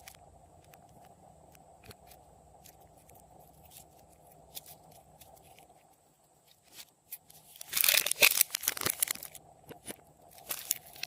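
Glossy slime with pieces of candy mixed in, being worked by hand: scattered small clicks, then a loud burst of crunching and crackling about eight seconds in, and a shorter one near the end.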